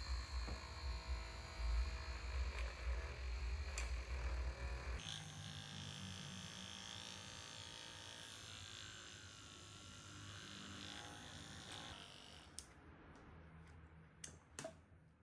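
RS550 12 V DC motor in a homemade PVC hand mixer, spinning a bicycle-spoke whisk with a steady whir. About five seconds in the low rumble drops away, leaving a higher whine, which dies down about twelve seconds in; a few sharp clicks follow as the mixer is handled.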